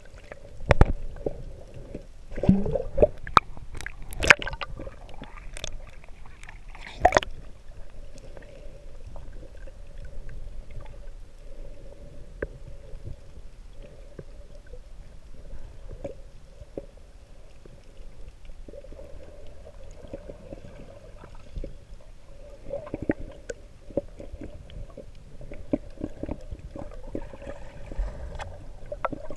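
Underwater sound heard through an action camera's waterproof housing: muffled sloshing and gurgling, with a faint steady hum. A cluster of sharp clicks and knocks falls in the first several seconds, and scattered lighter clicks follow later.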